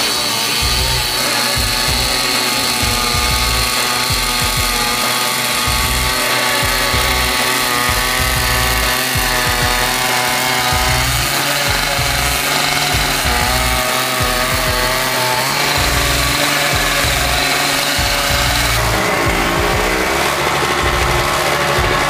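Toro CCR 2450 single-stage rubber-paddle snowblower running under load as it clears deep snow. The engine note holds for several seconds at a time and then shifts in pitch, with a rising swell near the end.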